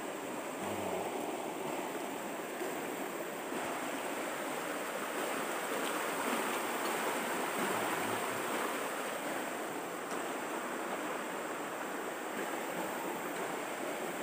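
Steady rush of flowing river water, swelling slightly in the middle.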